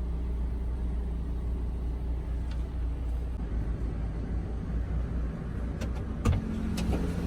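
A motor vehicle running with a steady low rumble, and a few sharp clicks near the end.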